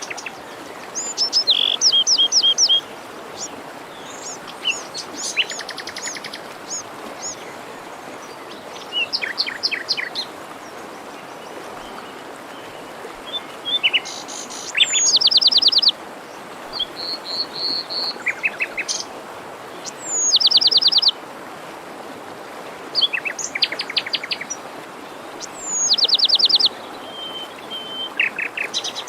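Songbirds singing short phrases every few seconds, several ending in a fast trill, over the steady rush of a forest stream.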